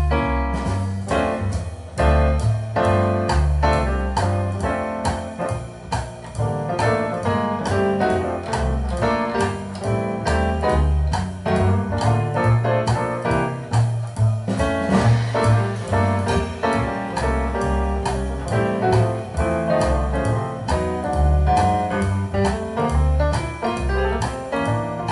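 Swing jazz from a piano trio: piano playing over double bass notes and a drum kit keeping time.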